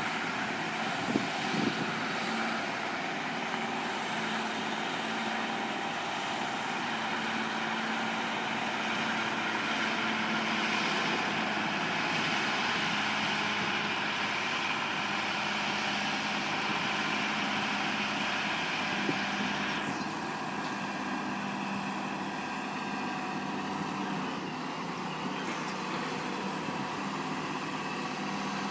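Heavy truck or machine engine running steadily, with a few brief knocks early on. About 20 s in the sound changes abruptly and loses its hiss, as a different engine sound takes over.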